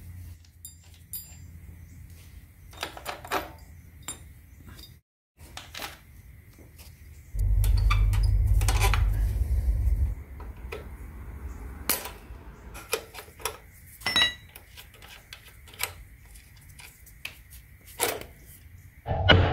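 Wrenches clinking and ticking against metal in scattered small clicks while the rear axle nut and brake rod fittings of a Suzuki DR200 dirt bike are loosened. A low rumble runs for about three seconds partway through.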